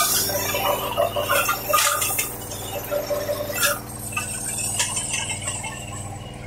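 A JF 50 Maxxium forage chopper running steadily while making corn silage, with chopped corn plants falling onto the silage pile in an irregular crackle and a few sharp clicks.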